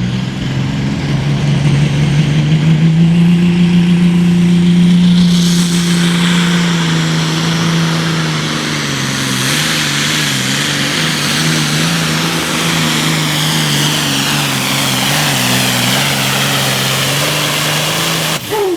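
Modified John Deere Super Farm pulling tractor's diesel engine at full throttle, pulling the weight sled down the track. It is loudest and climbing for the first few seconds, then holds a steady, slightly wavering pitch, with a broad hiss over it from about five seconds in. The sound cuts off suddenly near the end.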